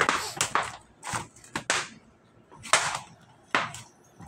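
Irregular sharp knocks and snaps, about seven in four seconds and unevenly spaced, from breadnut picking on and around a corrugated iron roof.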